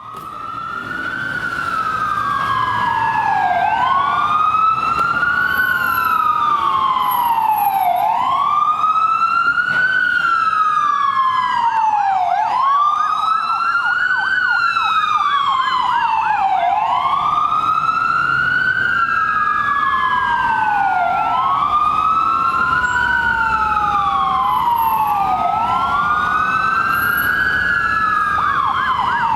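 Ambulance siren in wail mode: a loud tone sliding slowly up and down every few seconds. Twice it breaks into the fast warbling yelp. It fades in over the first few seconds.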